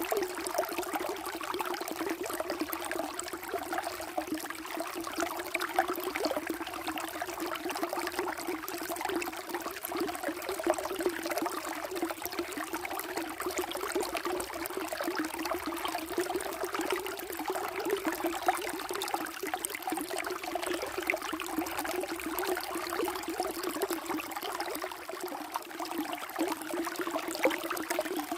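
Running water flowing and splashing steadily, a continuous babble that holds an even level throughout.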